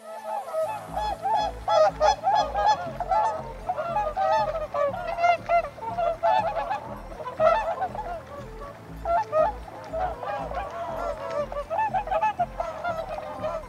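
A flock of geese honking: many short honks overlapping in quick succession, starting about half a second in and going on without a break.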